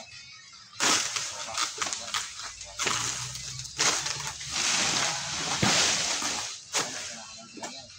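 Bursts of rustling and scraping from an egrek, a long-pole harvesting sickle, being worked in an oil palm crown, with a few sharp snaps. It starts about a second in and comes and goes irregularly.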